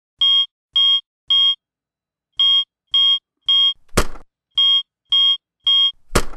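Digital alarm clock beeping in sets of three short, high beeps. A hand slaps down on it about four seconds in and again near the end, and after the second slap the beeping stops.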